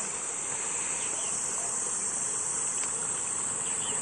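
A steady, high-pitched insect chorus buzzing without a break.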